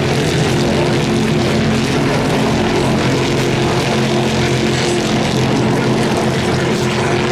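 Stock Car race car engines running on the circuit, a steady loud drone of several cars at high revs.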